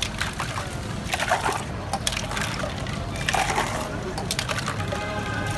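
Stainless steel mug and strainer bowl clinking, with liquid pouring and sloshing as lemon juice is strained for lemon water, over a bed of voices.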